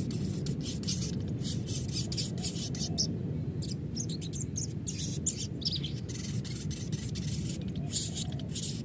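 Sogon bird song: rapid runs of short, high chirps and twitters in uneven bursts, over a steady low hum. It is a lure recording of the kind used to set other sogon birds singing.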